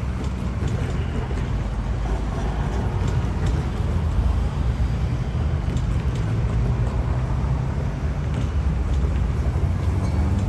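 Steady low rumble of vehicles moving near the rail crossing, with scattered faint clicks.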